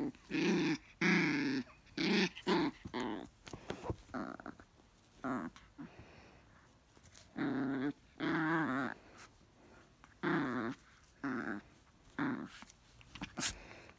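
Small dog play-growling while tugging a plush toy in a tug-of-war with a person's hand, in a series of short growls, about a dozen, each under a second.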